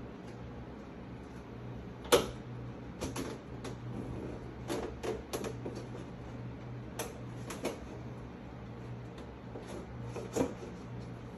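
Kitchen handling noises: scattered clicks and light knocks of pans and a tray being moved about on a gas stovetop, the sharpest about two seconds in and again near the end, over a steady low hum.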